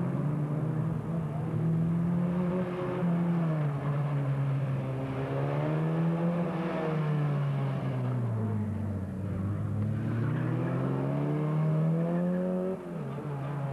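Formula Ford single-seater's engine running hard through a slalom: the revs climb and fall again and again as the car accelerates and slows between cones, sinking lowest about eight seconds in, then rising steadily until a sudden drop near the end.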